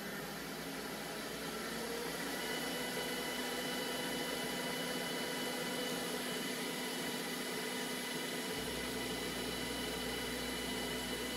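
Steady fan hiss with a few faint steady high tones running under it, with no separate clicks or knocks.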